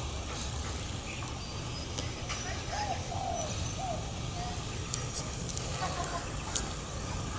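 Outdoor ambience: a steady low rumble, with four or five short, faint bird calls in quick succession a little before the middle and a couple more later on.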